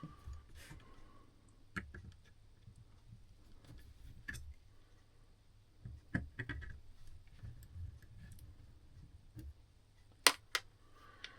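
Scattered light clicks and taps of a screwdriver and small metal screws and parts against a clock movement being taken apart, about seven separate clicks with the sharpest two near the end.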